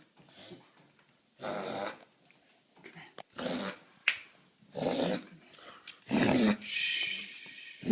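A dog coughing repeatedly: about five short coughs roughly a second apart, the last running on into a longer, drawn-out sound near the end.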